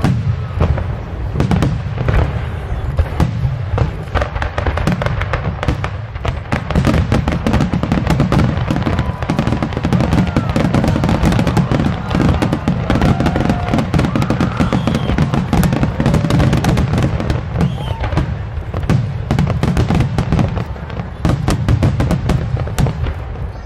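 Fireworks display: aerial shells bursting in a dense barrage of rapid, overlapping bangs and crackles over a continuous low rumble of booms.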